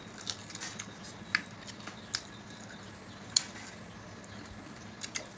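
Eating sounds from chicken and rice eaten by hand: scattered sharp smacks and clicks, about half a dozen, the loudest a little over a second in and just over three seconds in, over a faint steady background.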